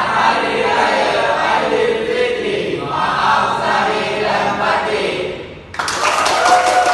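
A small group of people singing together in unison. About six seconds in they break into clapping, with voices over the claps.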